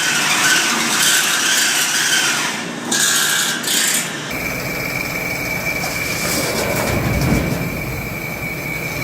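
Bandsaw-blade grinding machinery in a saw-filing room: a high grinding hiss that breaks off briefly twice. About four seconds in it changes suddenly to a low machine rumble with a steady high whine.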